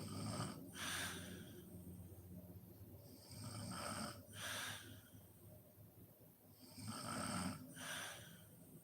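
A sleeping woman snoring, three slow, even breaths about three and a half seconds apart, each in two parts.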